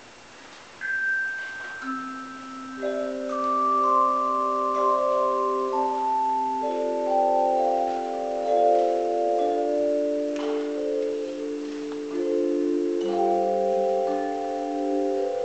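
Tone chimes playing a hymn. The melody starts about a second in, stepping down from high notes to low, and each chime rings on, so the notes overlap into sustained chords.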